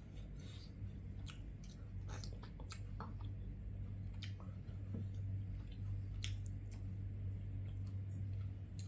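A person chewing food close to the microphone, with irregular soft clicks and smacks of the mouth. A steady low hum runs underneath.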